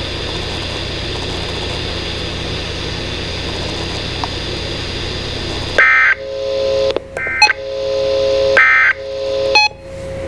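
Weather radio broadcast heard through a receiver: about six seconds of steady hissing dead air, then a run of short electronic beeps and tones broken by brief gaps and clicks.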